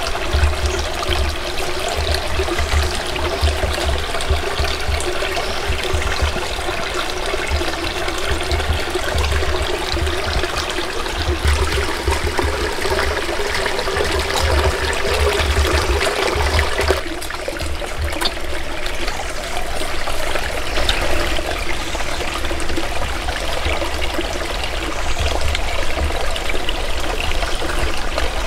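Small rocky stream running and trickling over stones: a steady water sound, with an uneven low rumble underneath. The sound shifts briefly about seventeen seconds in.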